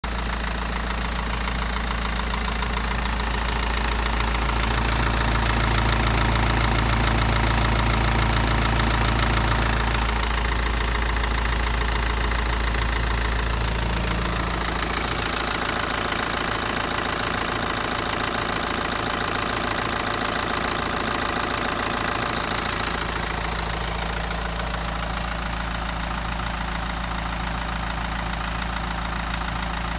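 BMW 118d's N47 four-cylinder diesel engine running at idle, with the ticking and rattling of a worn timing chain.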